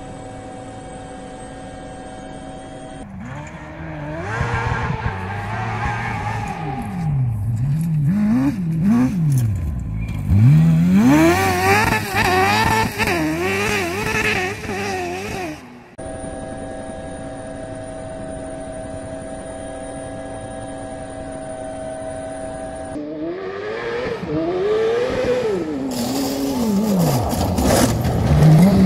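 A steady, even hum of quadcopter propellers, broken twice by a crosskart at full race pace: its engine revs high, sweeps up and down through the gears and drops as the kart slides through corners on gravel. The second run begins about 23 seconds in and builds to its loudest near the end.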